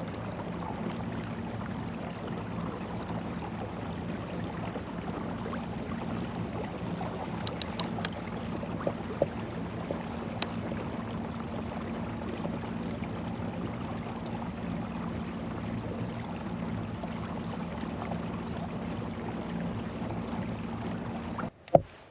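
Kayak moving on the water: a steady wash of water noise under a low, steady hum, with a few light clicks.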